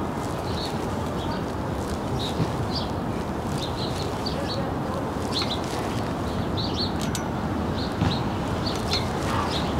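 Small birds chirping in short, high calls over a steady background rumble and hiss of outdoor city ambience.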